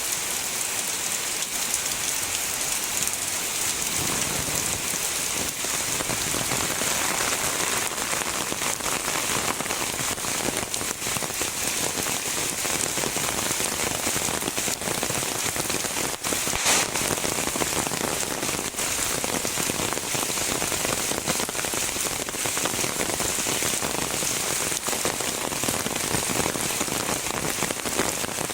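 Heavy rain falling steadily: a dense, even hiss of many drops striking and splashing.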